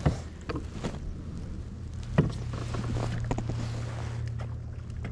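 A few knocks and taps of gear on a fishing kayak, then a steady low hum from about two seconds in.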